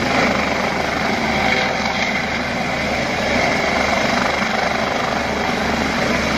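Search-and-rescue helicopter with a shrouded (fenestron) tail rotor hovering just above the ground as it comes in to land: steady, loud turbine and rotor noise.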